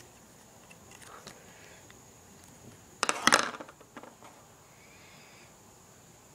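Brief clatter and rustle of hands handling things on a desk about three seconds in, followed by a few faint taps as fingers press small pieces of clay together.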